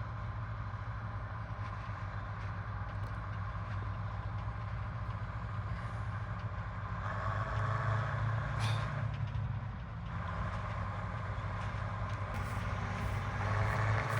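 Diesel engine of an old Bizon combine harvester running as the machine drives closer, a steady low drone that grows louder about halfway through and again near the end.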